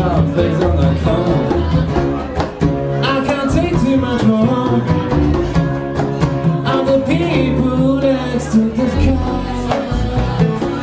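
Live small band playing a country-flavoured song: hollow-body electric guitar, upright bass and congas, with a man singing, heard through the camera's own microphone.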